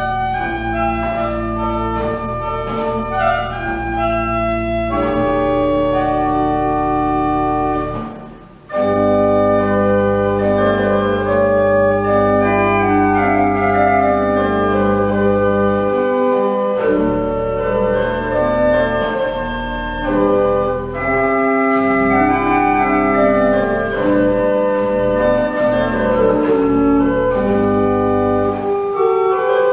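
1874 pipe organ playing sustained chords over held bass notes, with a short break about eight seconds in before the music resumes.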